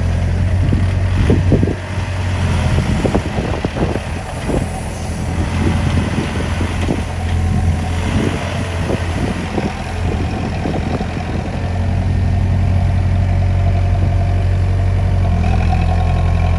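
Heavy diesel construction machinery engine running steadily, with a long run of irregular knocks and clanks for the first ten seconds or so, then running on its own.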